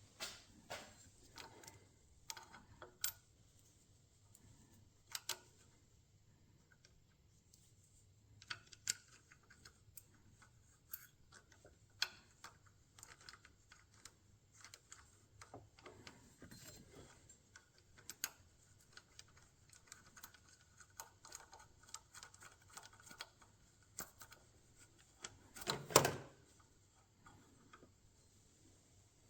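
Irregular light metallic clicks and taps of hand tools and parts being handled, with one louder knock near the end.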